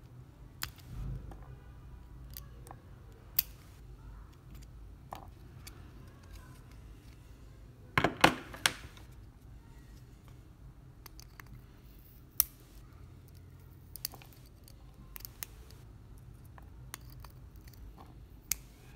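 Scattered sharp clicks and snaps of pliers and side cutters cutting and prying apart the plastic analog stick module on a PS4 controller board. The loudest cluster of snaps comes about eight seconds in.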